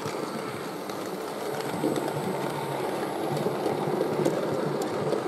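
A long rake of OO gauge model coal wagons rolling past on the track: a steady rumble of small metal wheels with light clicks, slowly growing louder.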